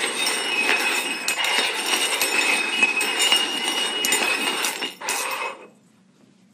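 Stainless steel cups shuffled quickly across a wooden floor, scraping and clinking against the floorboards and each other. The shuffling stops abruptly about five and a half seconds in.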